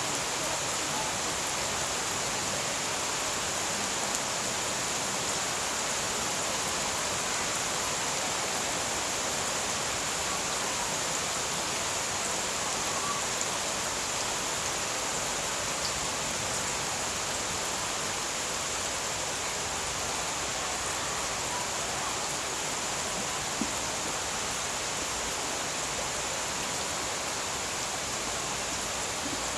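Summer rain pouring down steadily on garden plants, an even wash of falling drops that does not let up.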